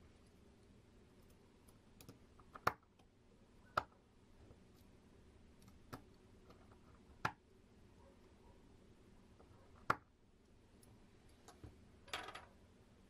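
Light clicks and taps from handling a small circuit board and its wires on a tabletop: a handful of sharp clicks a second or more apart, and a short rattle of clicks near the end.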